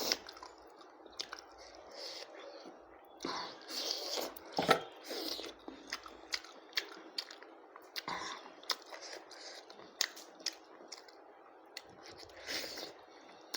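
A person chewing and eating mouthfuls of goat lung with rice, with wet mouth sounds and scattered sharp clicks.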